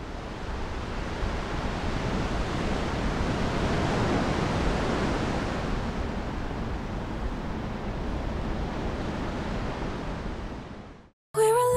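A steady rushing seaside ambience of wind and surf. It fades in at the start and cuts off suddenly about eleven seconds in, and music begins just after.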